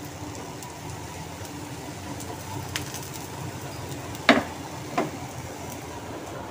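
Dosa cooking on a pan over a gas stove: a low, steady kitchen background, with two sharp clicks a little after four and five seconds in, as of a utensil knocking against the pan or bowl.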